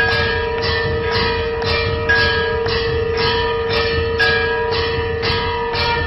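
Temple bells clanging over and over in a steady rhythm, about two strikes a second, rung during the aarti, with bells of a few different pitches ringing together over a continuous steady drone.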